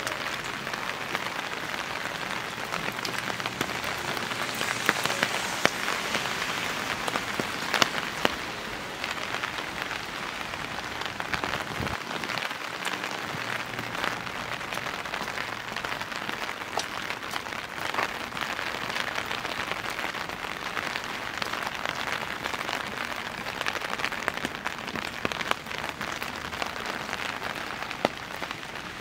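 Steady rain falling, an even hiss with many sharp drips and drops landing close by.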